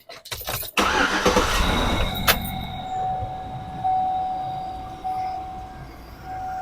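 2007 Chevy Avalanche V8 cranked and started, loudest for the first two seconds, then settling into a steady idle with a thin high tone over it. This is the first run after an oil change, waiting for oil pressure to come up.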